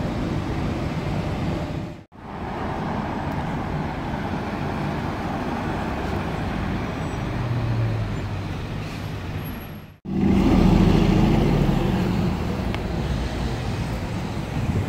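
City street traffic: car engines and road noise from passing cars, a bus and taxis, in three clips joined with abrupt cuts about two and ten seconds in. The last clip is the loudest, with a deep engine rumble as a car drives past.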